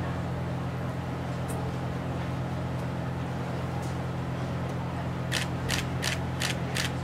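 Steady low mechanical hum, with a few sharp clicks and a quick run of about six clicks in a second and a half near the end.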